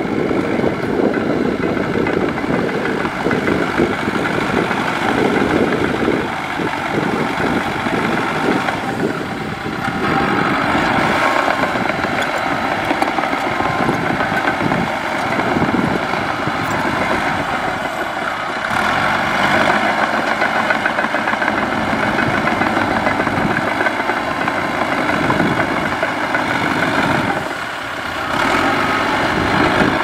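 Cat D3K2 crawler bulldozer's four-cylinder diesel engine running under load as the dozer pushes soil, its sound rising and falling with the work.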